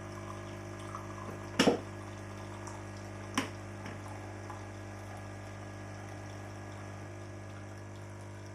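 QF-CM831V Nespresso-capsule coffee machine's pump running steadily as coffee dispenses into the cup, brewing the large-cup volume it has memorised. Two sharp knocks sound about one and a half and three and a half seconds in.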